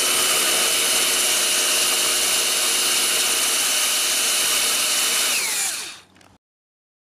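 Power drill running at a steady speed with a countersink bit boring into old painted wood, its motor whine holding one pitch. A little over five seconds in, the pitch falls as the drill winds down and stops.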